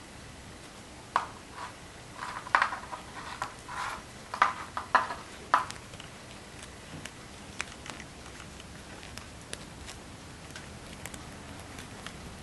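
Light clicks, taps and scrapes of hands handling a cut-out ellipse and a pen on a paper-covered board. They come as a busy cluster for a few seconds, then thin out to a few scattered ticks.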